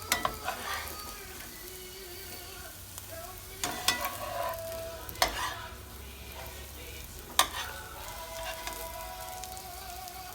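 Sausage and scrambled egg frying in a skillet without added oil, sizzling steadily, with a utensil stirring and knocking sharply against the pan about four times.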